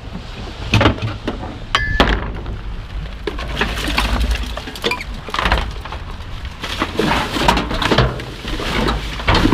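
Trash being rummaged through in a dumpster: irregular clattering, knocks and clinks of hard objects shifted and struck against each other.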